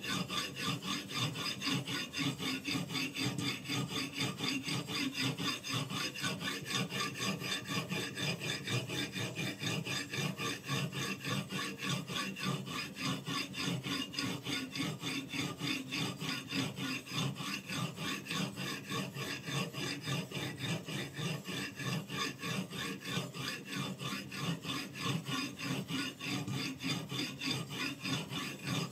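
Abrasive stone on a guided-rod knife sharpener rubbing along the edge of a Damascus-steel kitchen knife in steady, rapid back-and-forth strokes, a continuous gritty scraping.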